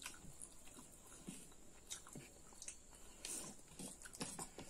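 Faint mouth sounds of people eating rice and pork curry by hand: chewing with irregular wet smacks and clicks.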